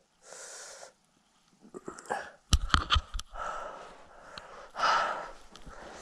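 A hiker's heavy breathing, one breath at the start and another about five seconds in, with a quick cluster of sharp knocks and scrapes around the middle.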